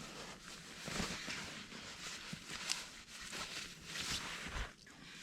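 Faint rustling with scattered soft crunches and knocks: someone moving about and handling gear in snow.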